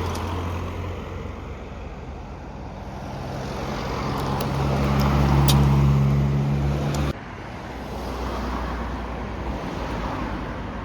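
Road traffic: a motor vehicle's engine hum swells to a peak as it passes, then cuts off abruptly about seven seconds in, leaving steady traffic noise.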